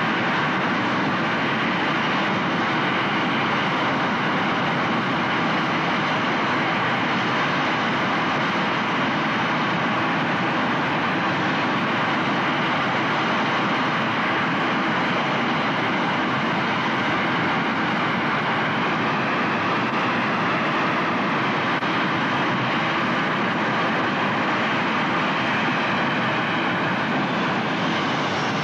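Twin MiG-21 jet engines of a Big Wind firefighting vehicle running steadily at high power, with water pumped into their exhaust stream: a loud, continuous, unbroken jet noise.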